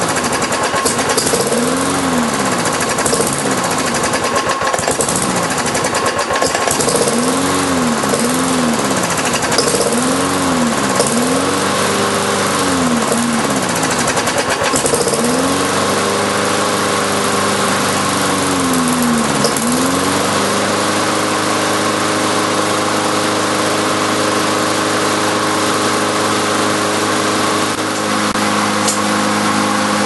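Briggs & Stratton lawn mower engine running, its speed rising and falling over and over, then settling to a steady run about two-thirds of the way in. It keeps running and will not shut off because the kill wire has come off the coil, and the owner thinks the carburetor needs a new diaphragm.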